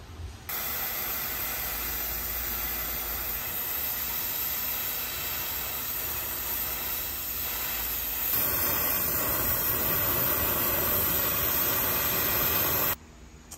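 Brazing torch flame hissing steadily while a copper refrigerant line fitting is brazed, the sound growing a little fuller about eight seconds in and stopping abruptly near the end.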